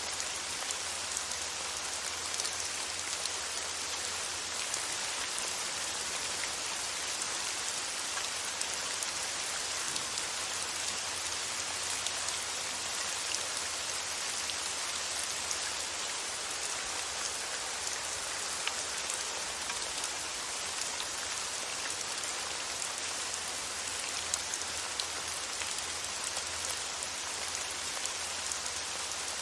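Steady rain falling, a continuous hiss with many small drop ticks throughout.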